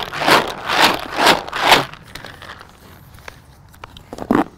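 Floater mixer biscuits rattling and swishing inside a lidded plastic bucket as it is shaken to coat them in oil, in a rhythmic run of about two shakes a second for the first two seconds. Quieter after that, with a few light clicks near the end.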